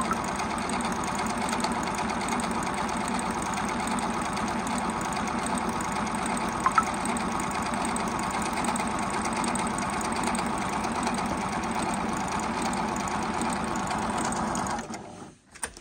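Juki HZL-009 computerized sewing machine running steadily at speed, sewing an overlock stitch along a fabric edge, with a brief click about seven seconds in. It stops near the end.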